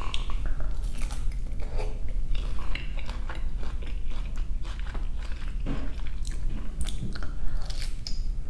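Close-miked chewing of a crispy, cheese-crusted quesobirria taco, with many small crunches and a fresh bite near the end.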